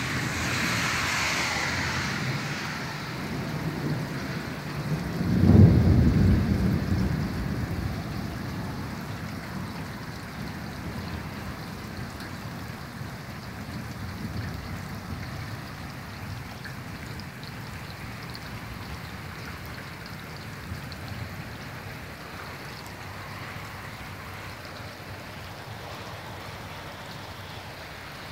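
Storm with heavy rain and gusting wind, with a loud low rumble about five seconds in; afterwards the rain settles into a steady hiss that slowly quietens.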